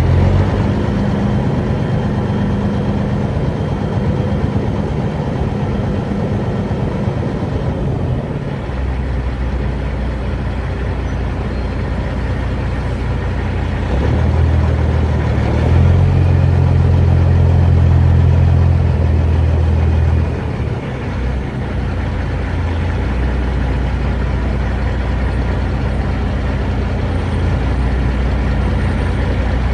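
Semi truck's diesel engine running at low speed while manoeuvring. It picks up revs about halfway through, runs loudest for several seconds, then drops back to a low run.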